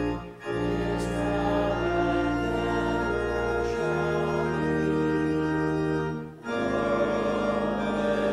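Church organ playing slow, held chords, breaking off briefly twice between phrases.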